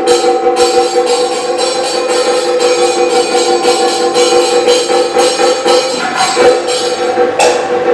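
Kathakali accompaniment music: quick, ringing strokes of metal percussion over a steady held drone.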